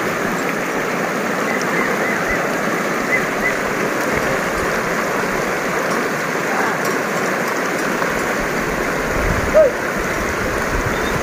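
Shallow mountain river rushing steadily over stones, with a few faint chirps early on and a brief call about nine and a half seconds in.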